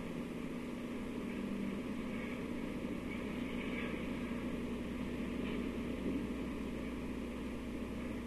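Steady hiss and low hum of an old 1950s film soundtrack, running unchanged with no voice over it.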